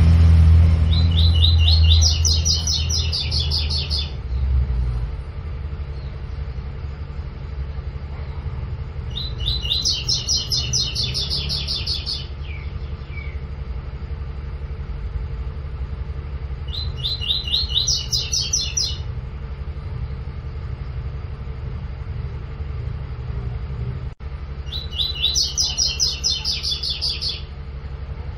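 Double-collared seedeater (coleiro) singing its 'tui tui' song: four bouts a few seconds apart, each a rapid run of high repeated notes lasting two to three seconds. A steady low rumble runs underneath.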